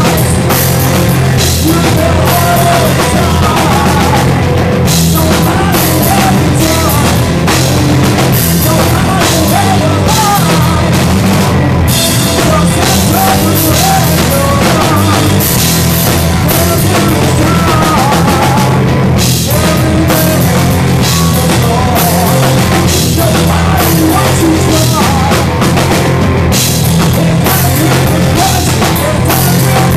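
Live metal band playing loud and without a break: electric guitar, bass and a drum kit.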